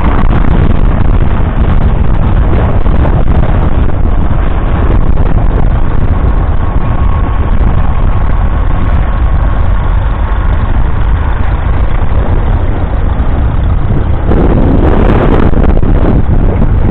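Vintage farm tractor engine running steadily, working in the field, with a louder rushing noise about fourteen seconds in.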